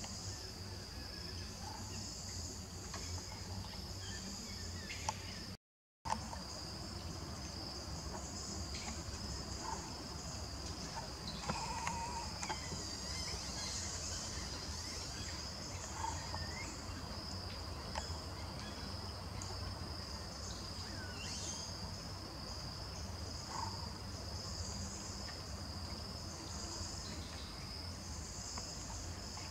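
Steady forest insect chorus, a constant high-pitched drone, with a few faint short calls scattered through it. The sound drops out completely for a moment just before six seconds in.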